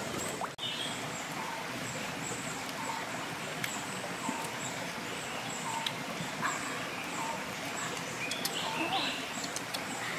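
Steady rush of a shallow rocky stream, with short faint animal calls and high chirps scattered through it and a few light clicks.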